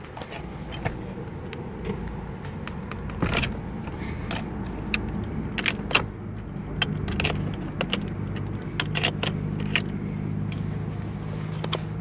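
Irregular metallic clicks and clinks of a T-handle socket wrench being worked on the steering wheel's centre nut, over a low steady hum that strengthens about halfway through.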